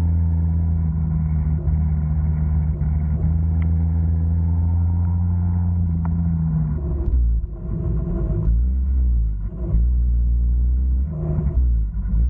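A 49cc two-stroke stand-up scooter engine running under way, holding a steady note, then dropping to a lower note about seven seconds in and coming in uneven surges.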